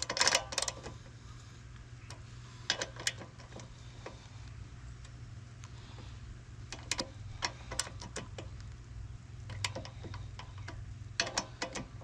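Hand socket ratchet clicking in short runs of quick clicks, with pauses between, as a bolt on a Honda lawnmower engine is snugged down by hand.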